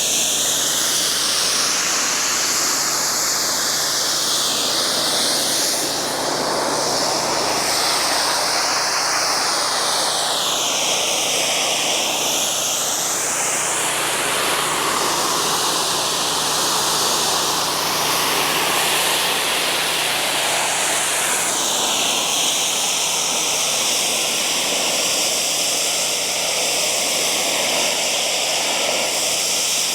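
Pressure washer spraying a concrete retaining wall: a loud, continuous hiss of high-pressure water whose pitch wavers up and down, with a steady low hum under it.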